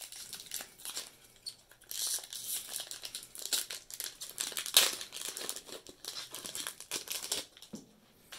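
Foil wrapper of a Magic: The Gathering booster pack crinkling as it is opened by hand, in irregular crackly bursts with the loudest about halfway through.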